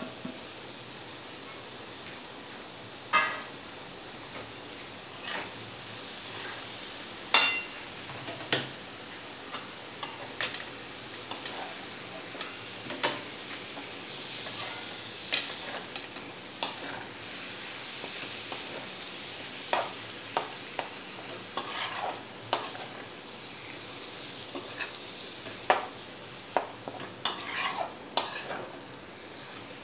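Steel spoon stirring grated paneer into frying masala in a metal kadai: irregular sharp clinks and scrapes of the spoon against the pan over a steady sizzle of oil.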